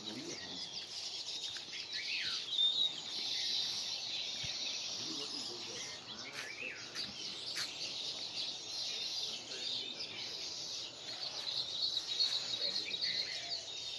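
Many birds chirping and calling in a dense, high twittering chorus, with a few louder sliding calls standing out from it.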